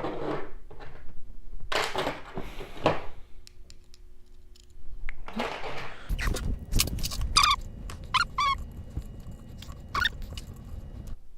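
Hand-assembly noise from tightening screws into T-nuts on the Ender 3's aluminium frame with a hex key: scattered clicks, metal and plastic handling sounds, and a cluster of short squeaks about two thirds of the way in.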